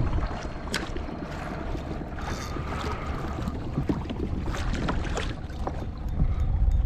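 Wind buffeting the microphone over water splashing and lapping against a kayak hull, with a few light knocks.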